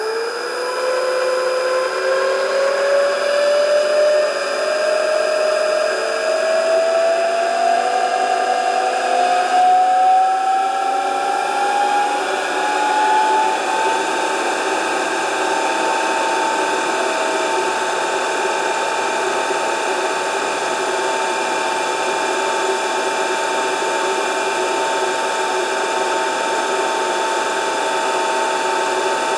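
Electric motor run from a variable-frequency drive speeding up: a whine that climbs steadily in pitch for about fourteen seconds, then holds at a steady pitch as the machine runs at speed.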